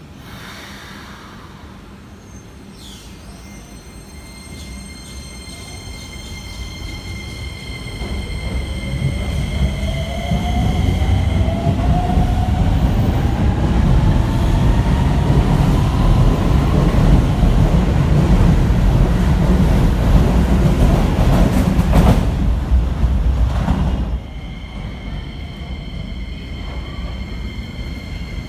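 Electric commuter train running through the station, its rumble building to a loud pass with a rising motor whine, then dropping off sharply about four seconds before the end.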